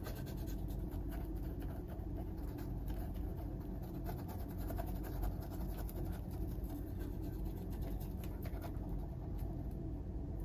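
Paintbrush strokes scratching faintly on a canvas over a steady low background hum.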